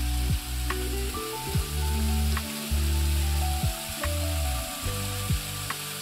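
Water of a cascade fountain splashing steadily into its pool, an even hiss. Background music with sustained bass notes and a regular thumping beat plays over it.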